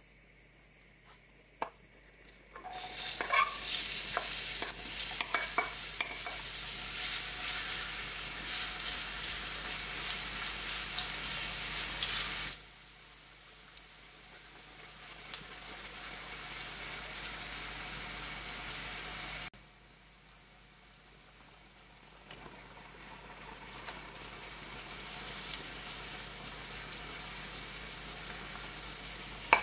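Diced onions hitting hot vegetable oil in a non-stick frying pan and sizzling loudly, with light clicks of stirring. The sizzle drops suddenly twice to a softer, steady frying hiss.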